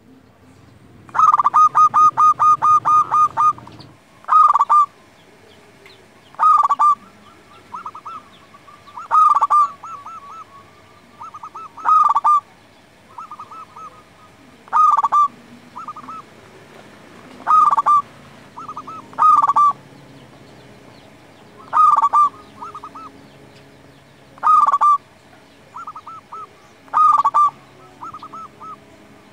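Zebra dove (perkutut) cooing. About a second in comes a quick run of a dozen rapid notes. Then a cooing phrase repeats every two to three seconds, each a loud coo trailing into softer rolling notes.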